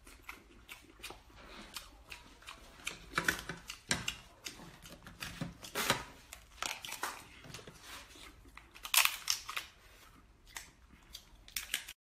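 Cooked lobster shell being cracked and pulled apart by hand: a steady run of crackling clicks, with louder cracks about three, four, six and nine seconds in.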